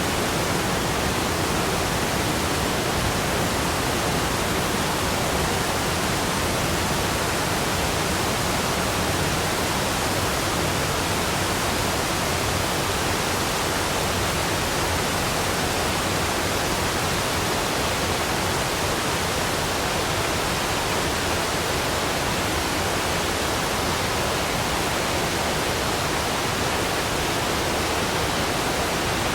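Waterfall rushing: a steady, dense roar of falling water that does not change.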